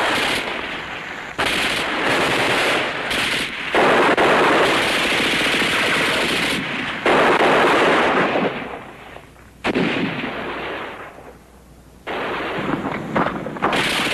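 Machine-gun fire in several long bursts, one after another, with short breaks between them and a quieter lull about eleven seconds in.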